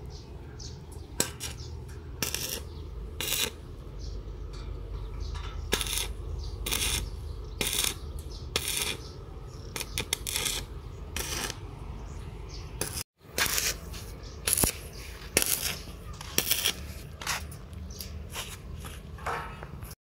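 Arc welding on steel: a string of short crackling bursts at irregular intervals, each under half a second, with a few sharp metallic taps among them, over a low steady hum.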